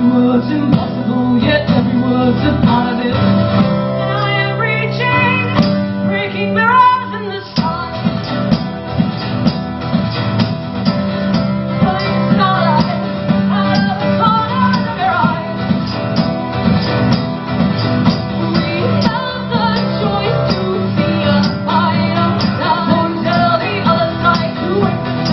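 Live music: strummed acoustic guitar with female singing, a full-band texture that shifts about seven and a half seconds in.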